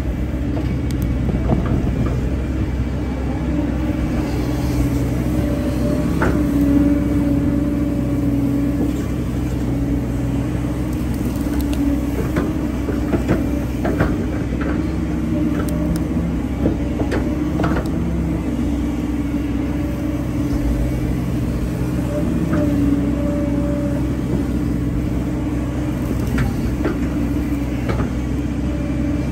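Hyundai hydraulic excavator's diesel engine running steadily under working load, with a humming tone that swells and eases at times and scattered short knocks from the machine at work.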